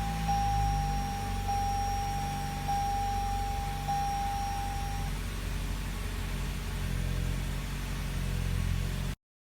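2019 Toyota Camry idling just after start-up, with a dashboard warning chime sounding as one clear tone that repeats about once a second and stops about five seconds in.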